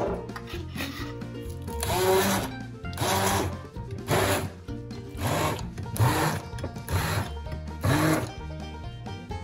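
Electric stick blender pulsed in about seven short bursts, each spinning up and winding down, puréeing soft roasted eggplant in a glass bowl. Background music plays underneath.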